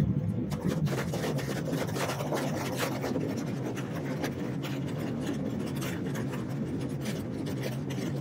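Steady engine drone inside an airliner cabin, with frequent scraping and rubbing handling noise close to the microphone.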